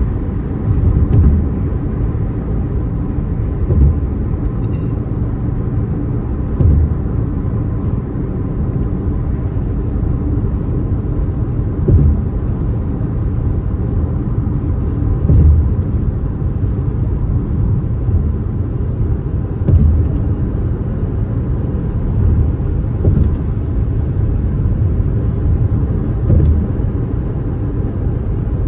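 Steady low rumble of a car driving on the road, engine and tyre noise together, with a brief low thump every three to four seconds.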